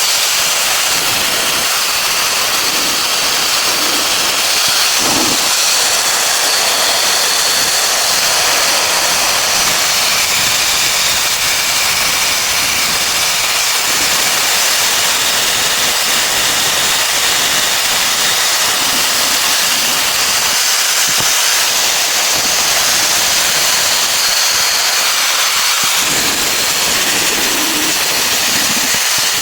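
A steady, loud hiss that runs without a break.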